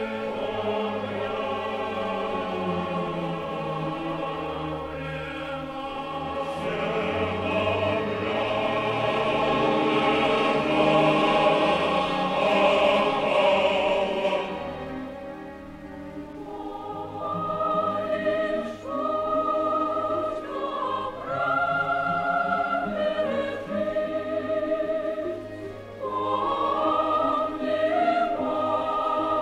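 Operatic music: a choir singing over an orchestra, swelling to its loudest midway, easing off briefly, then the voices come back in.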